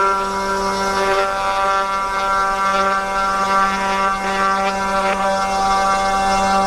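A 500 W spindle on a 3018 desktop CNC router running at speed, its end mill cutting a slot through wood. A steady whine with a rough cutting rasp over it.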